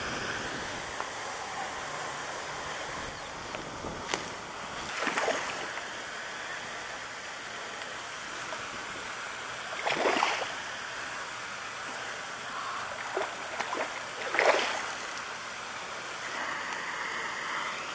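Hooked peacock bass splashing and thrashing at the lake surface several times as it is fought, over a steady background hiss.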